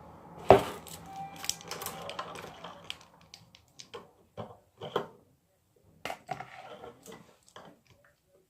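Slime being stirred in a bowl as it forms with contact lens solution: irregular clicks and taps, the loudest a sharp click about half a second in.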